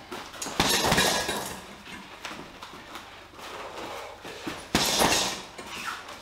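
Boxing gloves striking a heavy punching bag in two quick combinations, about half a second in and near the end, with softer knocks between.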